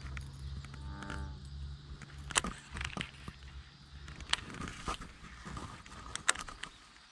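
Handling of a baitcasting rod and reel: several sharp clicks and taps over a low steady hum, with a short buzzing tone about a second in.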